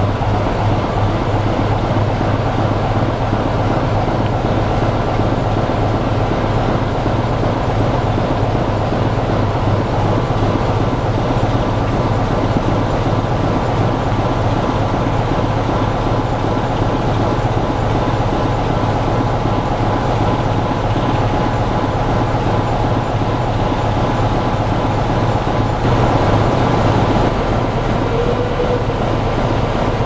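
Class 25 diesel locomotive's Sulzer six-cylinder engine idling with a steady low throb, heard from the carriages behind it.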